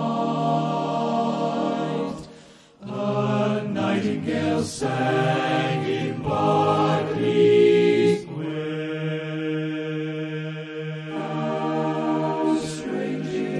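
Male barbershop chorus singing a cappella in close harmony, holding long chords. The singing breaks off briefly about two seconds in, then starts again.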